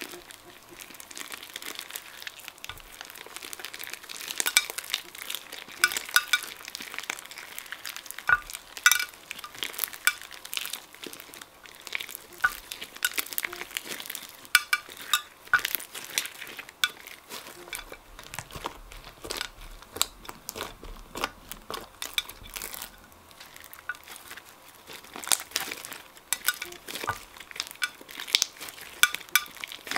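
Hands kneading and squeezing thick pink slime mixed with candy pieces: sticky squishing with irregular crackles and pops.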